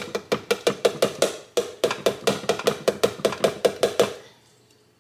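Diced onions poured from a plastic container into a skillet: a quick run of clicks and taps, about five or six a second, as the pieces and the container hit the pan. It stops about four seconds in.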